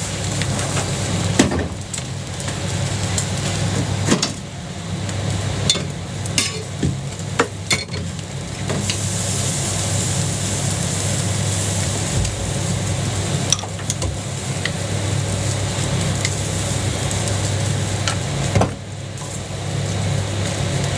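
Jianbing batter frying on a griddle with a steady sizzle, as a spatula scrapes and taps on the plate several times, over a steady low hum.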